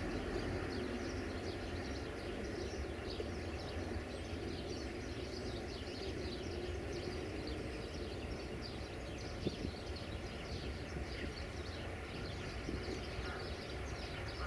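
Steady low drone of a CFR class 060-DA diesel-electric locomotive's Sulzer diesel engine hauling a freight train, with short high chirps of small birds over it.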